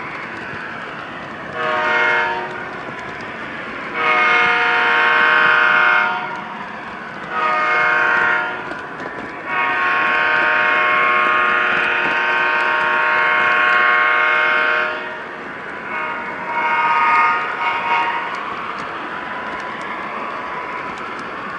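Multi-note diesel air horn from a model locomotive's onboard sound system, sounded in about five blasts: a short one, then longer ones, the longest held about five seconds. A steady running noise from the O scale three-rail train continues between the blasts.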